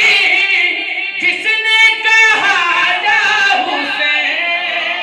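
A young man singing a manqabat, an Urdu Shia devotional poem, unaccompanied into a microphone, with long held, wavering notes.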